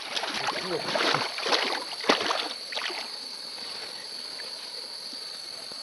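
Water splashing and sloshing as hands work in a shallow stream, dying away about three seconds in. Night insects keep up a steady, high chirring throughout.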